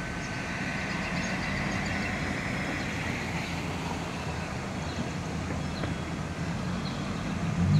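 Diesel locomotives of a freight train running as the train moves away, a steady low engine rumble that grows louder near the end.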